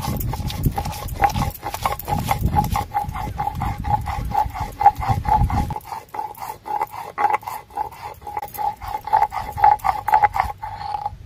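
Shil-nora grinding stone in use: a cylindrical stone pestle pushed back and forth over a grooved stone slab, grinding dried red chillies and garlic into a paste. Each quick rhythmic stroke gives a stone-on-stone rasp with a pulsing squeak. The grinding stops shortly before the end.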